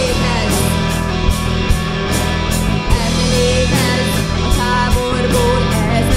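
Rock band playing live: drums keeping a steady beat of about two hits a second, under bass and guitar.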